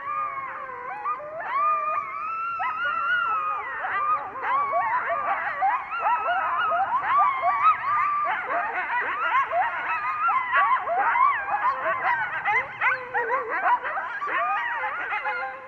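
Coyotes howling and yipping together: a long falling howl at the start gives way to a dense, rapid chatter of high yips and short wavering howls.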